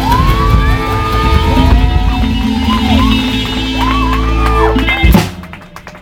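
Live band of fiddle, guitar and drum kit playing over a held chord, the fiddle sliding up and down in pitch. The band ends on a sharp final hit about five seconds in, and the sound then drops away.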